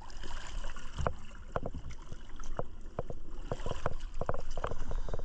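Water splashing and irregular knocks against a small boat's hull, over a low rumble of water and wind.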